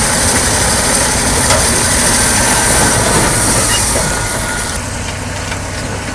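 Caterpillar bulldozer's diesel engine running hard with its steel tracks clattering as it pushes a large boulder. The sound gets somewhat quieter about four seconds in.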